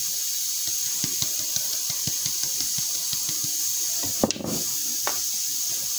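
White flour being sifted through a plastic hand sieve, the sieve shaken and tapped in a run of light, irregular taps over a steady hiss. A single louder knock comes about four seconds in.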